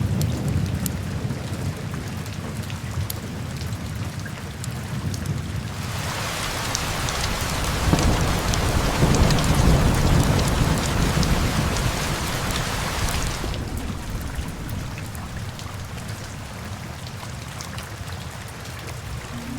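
Steady rain with low rumbling thunder. About six seconds in, the rain swells into a heavier downpour and a longer roll of thunder builds, then both ease back after about seven seconds.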